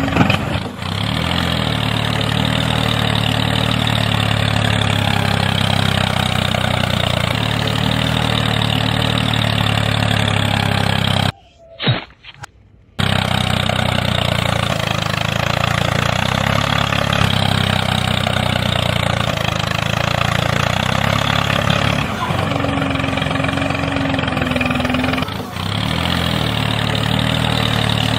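Tractor engine idling steadily, with a low, even throb. It cuts out for about a second and a half about halfway through, then carries on.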